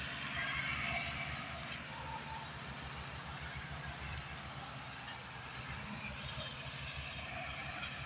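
Several diesel farm tractors running hard together, towing a heavily loaded sugarcane trailer: a steady, pulsing low engine chug.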